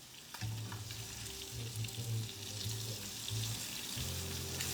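Fish frying in hot oil in a pan, a steady sizzle, with a low hum that comes and goes.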